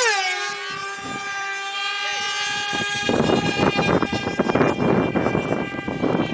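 Small two-stroke engines of radio-controlled pylon racing planes, a steady high-pitched whine in the air. From about three seconds in, gusty noise of wind buffeting the microphone comes in over it.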